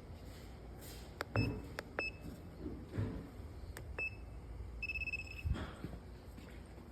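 Short electronic beeps from a handheld TPMS tool triggering the tire pressure sensors during a relearn: several brief beeps, then a longer beep about five seconds in. A few clicks and knocks come between them.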